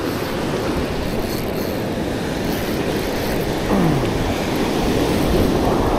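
Surf washing up a beach, with wind rumbling on the microphone, a steady noise throughout. A short falling voice sound breaks through about four seconds in.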